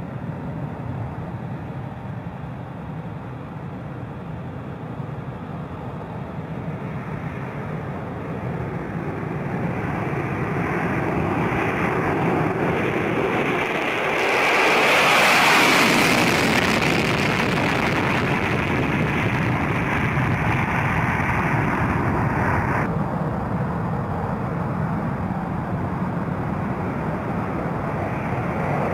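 F-16 fighter jets taking off, their single jet engines running at full power. The jet noise builds steadily and peaks with a sharp, hissing top about halfway through as one jet lifts off past. It then carries on at a steadier level, and the high hiss cuts off suddenly a few seconds before the end.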